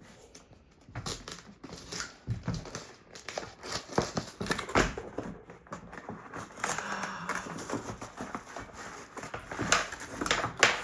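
Packing material being crinkled, pulled and torn by hand as a tape is worked out of its box: irregular rustling, crackling and clicking.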